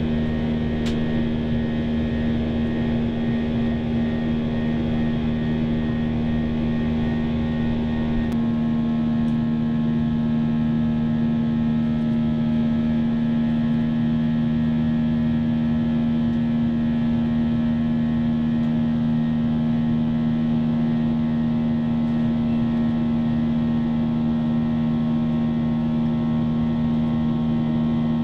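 Cabin noise of a Boeing 737-800 climbing out: its CFM56 jet engines make a steady hum with a continuous low drone of tones. About eight seconds in, the deepest rumble drops away abruptly and the mix of tones shifts, then the hum carries on evenly.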